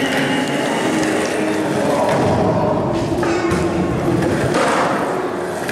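Skateboard wheels rolling on a concrete floor, with a few board knocks, over the chatter of a crowd echoing in a large hall.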